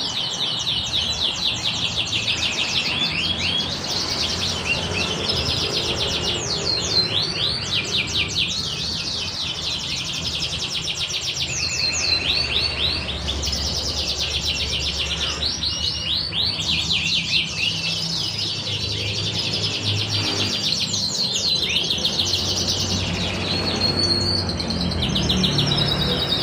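Domestic canary singing without a break, in long fast trills and rolling, repeated phrases.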